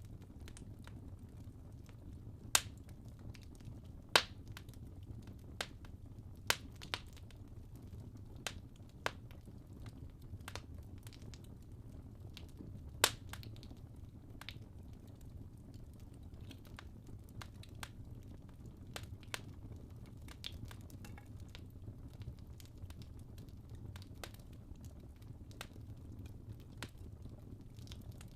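Wood fire burning in a fireplace: sharp crackles and pops from the burning logs, scattered irregularly over a steady low rumble of the flames. The loudest pops come about 2.5, 4, 6.5 and 13 seconds in.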